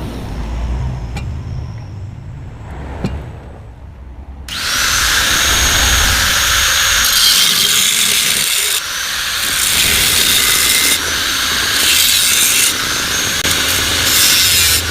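Power tool cutting into the steel of a replica Yamaha RX-King exhaust muffler as it is opened up. The cutting starts about four and a half seconds in after a quieter stretch, then runs loud and steady with a few short dips.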